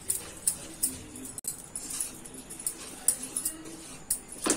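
A metal spoon scraping and clinking against a metal kadhai as a dry, crumbly mix of roasted gram flour and sugar is stirred, with a sharp scrape every half second or so. The loudest scrape comes near the end.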